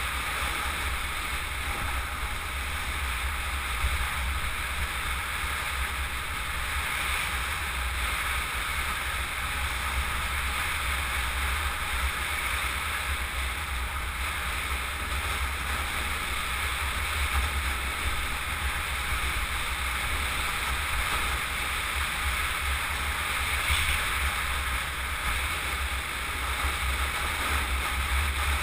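Steady wind rush and low buffeting over a helmet-mounted camera's microphone while riding a bicycle at speed down an asphalt road.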